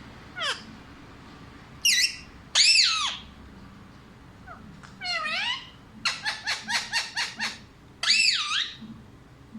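Pet parrot calling: a string of shrill, gliding squawks and whistles, some sweeping down and some arching up and down, with a quick run of short notes at about six a second near the middle.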